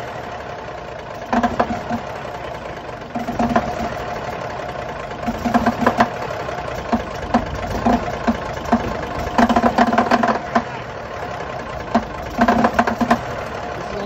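Cummins 855 inline-six diesel running roughly just after a cold start in freezing weather, a steady drone broken every second or two by clusters of loud sharp knocking: a cold diesel firing unevenly while it blows white smoke.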